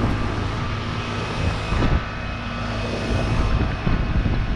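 A 2006 Goodman CPLE heat pump outdoor unit running in its defrost cycle: a steady mechanical drone with a low compressor hum and steady pitched tones over it.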